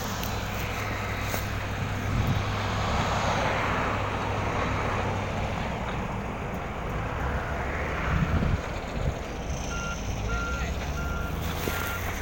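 A vehicle engine running steadily, with a series of short, evenly spaced electronic beeps, about two a second, starting near the end.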